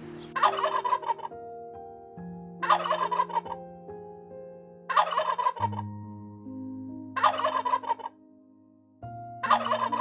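A large fowl calling. It gives a short, rapidly pulsing call five times, about every two and a half seconds, over soft background music with held chords.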